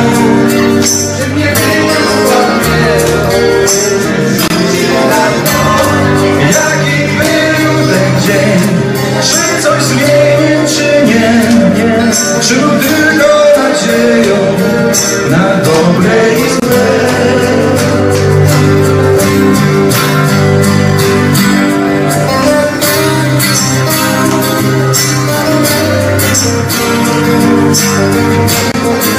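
Live acoustic band playing: two acoustic guitars, with hand percussion keeping a steady rhythm of sharp shaker-like ticks, and a male voice singing.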